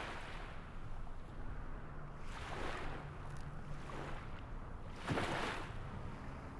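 Rushing wind and water noise that swells every couple of seconds, with a faint low hum in the background.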